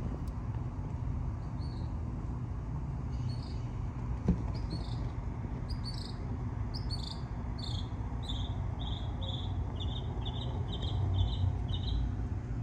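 A small bird chirping: short high notes, at first in scattered pairs, then in an even run of about three a second near the end, over a steady low outdoor rumble.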